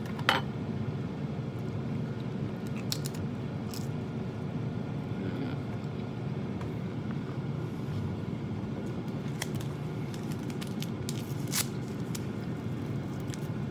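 Eating sounds: chewing, and a metal fork clicking and scraping in an aluminium foil pan. A few sharp clicks are scattered through, the loudest right at the start, over a steady low hum.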